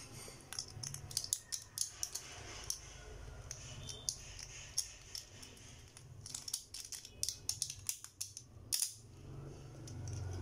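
Plastic and metal Beyblade spinning-top parts being snapped together by hand: a run of small sharp clicks, bunched in the first two seconds and again from about six to nine seconds, with the loudest click near nine seconds.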